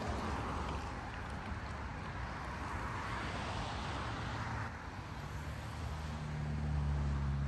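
Road traffic beside a riverside walking trail: a steady wash of passing-vehicle noise, with one vehicle's low engine hum swelling from about five seconds in and loudest near the end.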